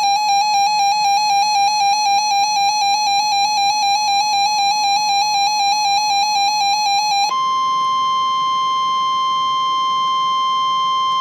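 Emergency Alert System attention signal: a harsh electronic beep pulsing rapidly, about five or six times a second, that about seven seconds in switches abruptly to a steady, slightly higher continuous alert tone.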